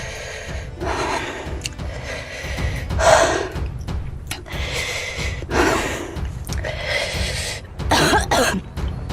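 A person coughing in about five harsh fits a second or two apart, the loudest about three seconds in: the kind of coughing set off by the burn of an extremely hot chili chip.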